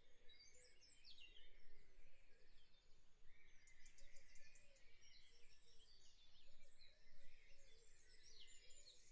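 Faint chirping and twittering of small birds: many short, quick calls throughout.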